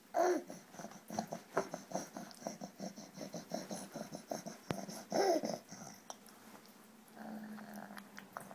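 Baby vocalizing while being spoon-fed: a squeal with a pitch glide at the start, a run of short, quick grunting and babbling sounds, and another squeal about five seconds in.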